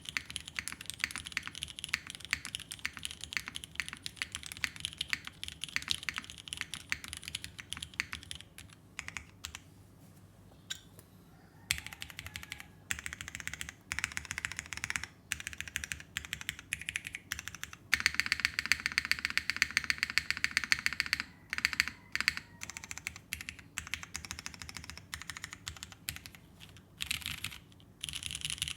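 Typing on an Alchemy AL.6 mechanical keyboard with vintage Cherry MX Black linear switches and GMK keycaps. It opens with a steady run of rapid keystrokes, thins to a few scattered presses, then comes back in bursts. The loudest and densest run of typing comes a little past the middle.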